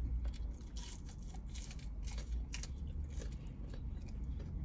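A person biting into and chewing a fried chicken nugget, with irregular crunchy chewing sounds close to the microphone over a steady low hum.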